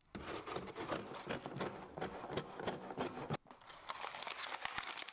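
Crinkling and rustling of packaging being handled: a dense run of small irregular clicks and crackles, broken by a brief pause about three and a half seconds in.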